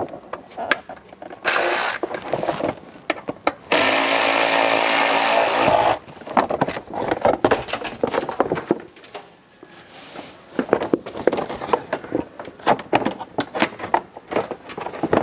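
A power drill runs in a short burst, then steadily for about two seconds, backing out the screws that hold the front fender liner. Around it are scattered clicks and knocks of the plastic fender liner being worked loose.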